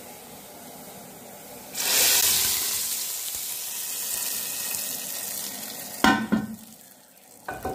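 Hot tadka oil with cumin, round chillies and chopped garlic poured from a frying pan into cooked dal. A faint sizzle gives way about two seconds in to a sudden loud hiss as the oil hits the dal, fading gradually, followed by a few knocks near the end.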